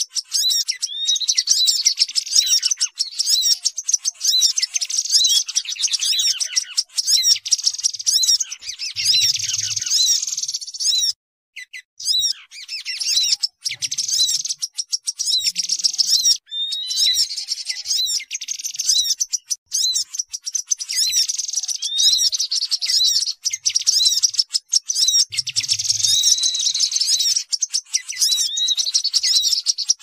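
Bird-lure recording of many small birds chattering at once: noisy tepus babblers mixed with sunbird and grey-headed canary-flycatcher calls. It is a dense run of rapid, high-pitched chirps and trills, repeating on a loop, with a brief break about eleven seconds in.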